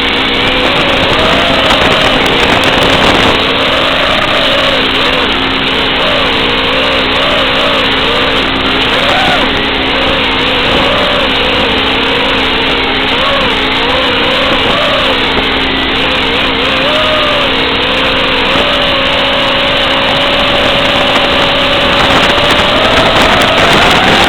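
Brushless motors and propellers of a 5-inch FPV racing quadcopter whining, the pitch rising and falling constantly with the throttle. The pitch holds steady for a few seconds, then climbs near the end.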